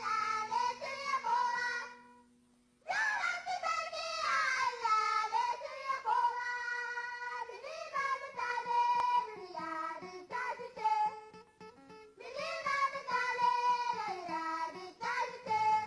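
A group of girls singing together as a choir. The sound drops out briefly about two seconds in, then the singing resumes.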